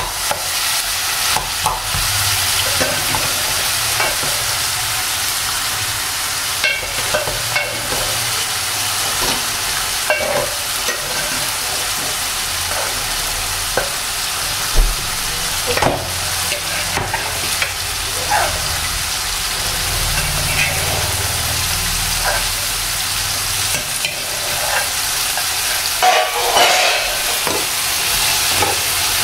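Boiled black chickpeas sizzling in a tomato-onion masala in a nonstick frying pan, with a steady frying hiss. A steel spoon scrapes and clicks against the pan as they are stirred now and then.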